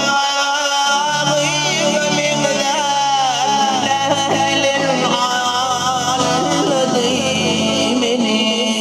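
Live Turkmen folk song: a man sings a melody with sliding, ornamented vocal lines over electronic keyboards playing sustained chords and a stepping bass line.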